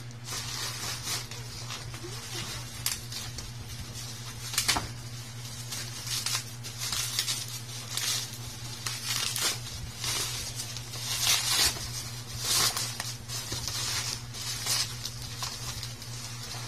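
Plastic packaging crinkling and rustling in irregular bursts as a courier pouch is torn open and black bubble wrap is pulled off a small plastic box, over a steady low hum.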